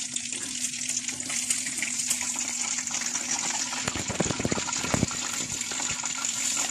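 Hot oil in a karahi sizzling steadily with fine crackles, as in deep-frying fish. A few dull low knocks come about four to five seconds in.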